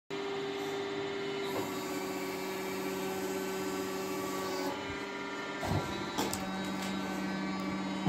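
Carpathian SMSA 110 sawmill running: a steady motor hum with a high whine over it. The high hiss drops out about halfway, and a few knocks come near the end.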